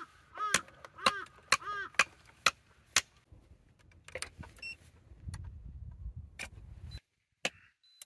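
Clicks and knocks of a power plug being pushed into a portable power station's AC outlet and of a small rice cooker being handled. A bird calls four times in quick succession early on. A low rumble runs from about halfway until the sound cuts off suddenly a second before the end.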